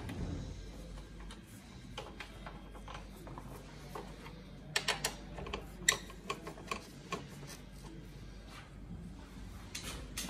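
Light metallic clicks and taps of an Allen key turning and loosening the passenger footpeg bracket bolts on a motorcycle. The clicks are scattered, with a quick run of sharper ones around the middle.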